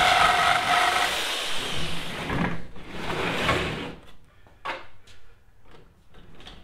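Reciprocating saw running as it cuts apart a wooden pallet, stopping about a second in. Later come a few separate knocks and clatters of the loose pallet boards being handled.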